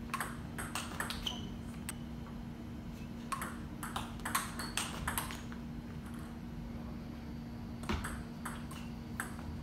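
Table tennis ball clicking back and forth off paddles and table in quick rallies, a sharp tick every few tenths of a second, with a pause of about two seconds in the middle. A steady low hum underneath.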